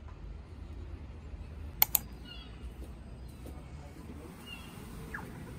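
Street ambience with a steady low traffic rumble, two sharp clicks in quick succession a couple of seconds in, and a few faint high chirps.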